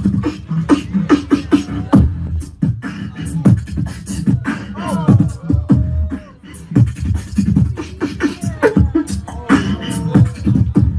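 Live beatboxing through a handheld microphone and PA: a fast run of mouth-made kick, snare and hi-hat strikes over deep bass, with sliding pitched sounds mixed in and a short break about six seconds in.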